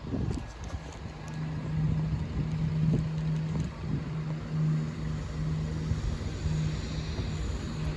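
Wind buffeting the microphone, with a steady low engine hum that comes in about a second in and wavers in strength.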